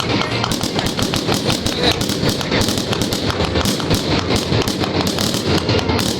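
Aerial fireworks going off in rapid succession: a dense, continuous crackle of sharp bangs, several a second, with no pause.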